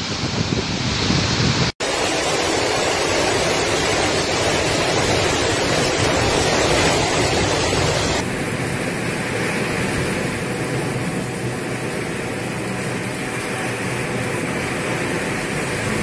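Heavy rain and strong wind during a storm, a dense steady rush of noise. It drops out for an instant about two seconds in and turns duller about eight seconds in.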